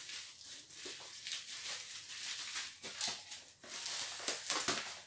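Clear plastic packaging crinkling and rustling in irregular crackles as a small cardboard box is worked out of it by hand.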